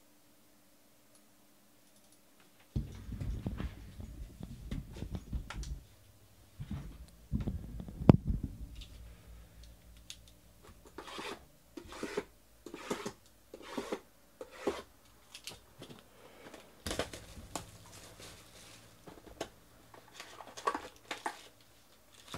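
Cardboard hobby boxes of trading cards being handled and torn open by hand: rustling and scraping of cardboard and wrapper, with a loud knock about eight seconds in. Then comes a run of short tearing strokes, about two a second.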